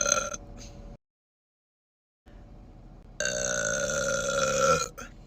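A woman's long, loud burps. One ends just after the start; after a second of dead silence, another begins about three seconds in and holds a steady pitch for about a second and a half.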